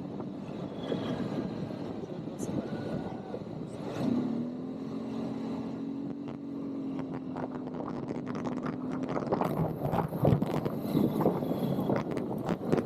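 ATV engine running under way: it picks up about four seconds in and holds a steady engine note, then clattering knocks and rattles take over for the last few seconds.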